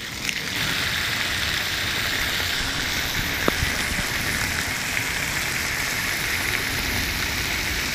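Bacon rashers and mushrooms sizzling steadily in hot fat in a frying pan on a gas camping stove.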